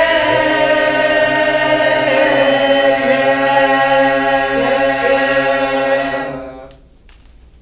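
A mixed group of men's and women's voices singing together unaccompanied, holding long sustained notes; the singing dies away about six and a half seconds in.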